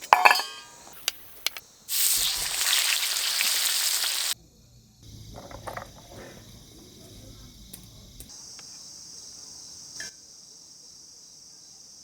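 Food sizzling loudly in a hot pan or on a grill for about two seconds, cutting off abruptly. Then a low rumble, and crickets trilling steadily, stronger near ten seconds in before a click.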